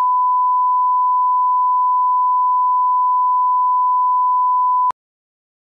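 1 kHz reference test tone of a colour-bars-and-tone leader: one steady, unwavering beep that cuts off suddenly near the end.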